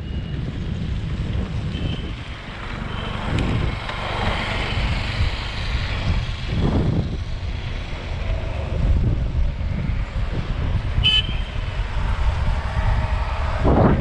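Wind rushing over the microphone of a handlebar-mounted action camera, with tyre rumble from a mountain bike riding fast on a road and passing traffic. A vehicle horn gives short beeps, the clearest about eleven seconds in.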